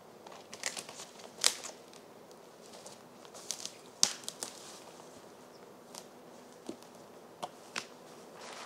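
Footsteps on dry forest-floor litter, with irregular sharp snaps and crackles of twigs breaking underfoot.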